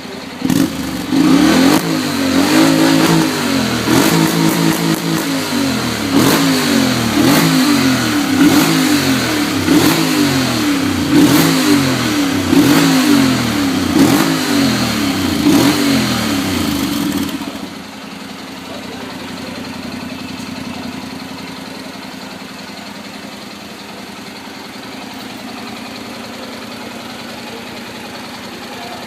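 Honda NC700 motorcycle's parallel-twin engine revved through an aftermarket 2Way exhaust tip: a series of quick throttle blips, about one every second or so, each rising and falling in pitch. About two-thirds of the way in the revving stops and the engine settles to a steady idle.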